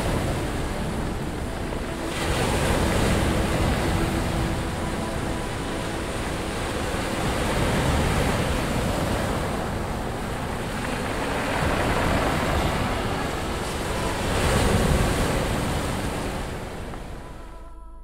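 Sea surf washing up a pebble beach, swelling and ebbing every few seconds, with wind buffeting the microphone. It fades out at the very end.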